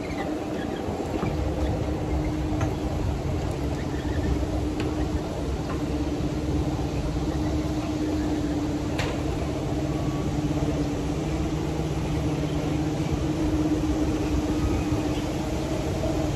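A steady low mechanical hum with a held tone, like an engine or machine running, and a few faint clicks.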